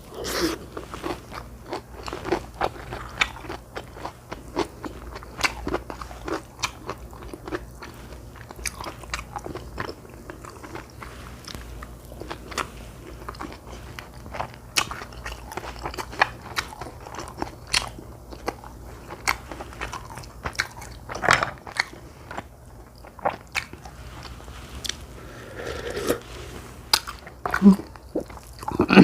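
A person eating close to the microphone: chewing and biting food, with many short, sharp clicks and crunches coming irregularly.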